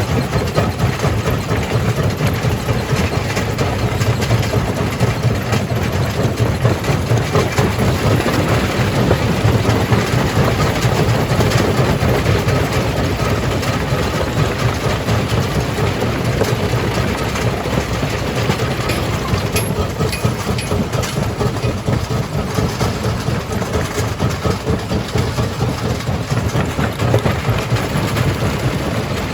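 Jaw crusher running under load: a steady heavy rumble with a dense, continuous rattle over it.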